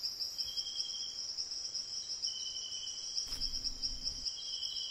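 Insects trilling: one steady high trill runs throughout, and a second, slightly lower trill comes in and out three times.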